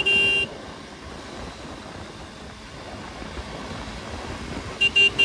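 Steady wind rush over the microphone of a fast-moving motorcycle. A horn gives one honk of about half a second at the start and a quick run of short beeps near the end.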